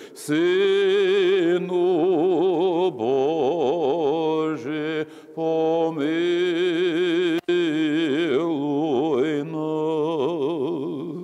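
A man's solo voice chanting a Byzantine-rite Lenten refrain in Ukrainian, with long drawn-out notes and a wide vibrato, the last note dying away near the end.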